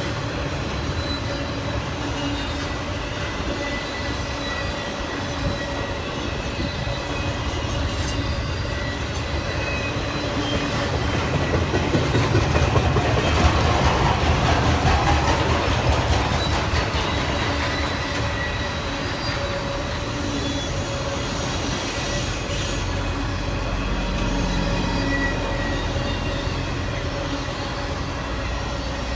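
A train rolling past on steel rails, with steady high squealing tones from the wheels over a continuous rumble that swells to its loudest midway.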